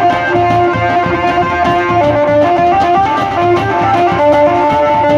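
Wedding band (band baja) music: a plucked-string melody line over a steady drum beat.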